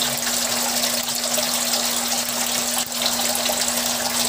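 Steady rush of running water in a crayfish tank, with a steady low hum underneath.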